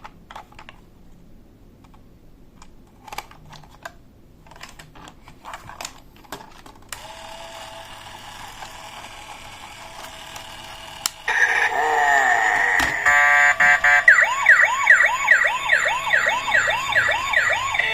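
Light plastic clicks and taps, then a loud electronic siren sound effect: a wailing tone that rises and falls about twice a second through the last few seconds.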